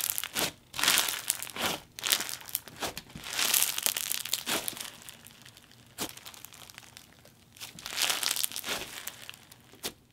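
Bingsu bead slime squished and stretched by hand, the beads crunching and crackling with small pops in repeated bursts, the loudest right at the start.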